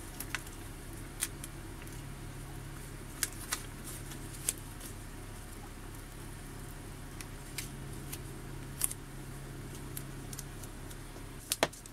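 Self-adhesive vinyl being handled and peeled apart from its backing paper by hand, giving scattered faint crackles and ticks, about a dozen in all. A low steady hum runs underneath.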